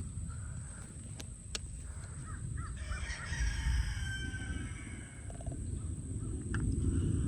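Wind rumbling on the microphone, with a drawn-out bird call, such as a rooster's crow, about three seconds in.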